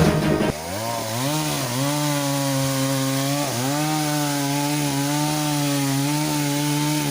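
Chainsaw running at high speed with a steady engine note that dips in pitch twice, about a second and a half and three and a half seconds in, as it takes and eases load while cutting a tree.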